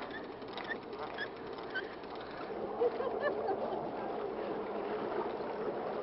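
Steady wash of water around a small fishing boat, with faint voices and a few short high chirps.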